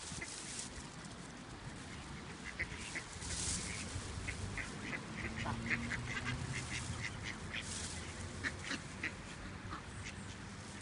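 Canada goose goslings peeping: many short, high calls in quick succession, thickest through the middle. Now and then a short breathy rush of noise.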